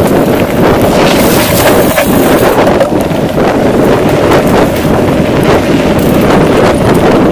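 Heavy wind buffeting the microphone of a camera on a mountain bike riding fast over a dirt trail, with frequent rattles and knocks from the bike on the rough ground.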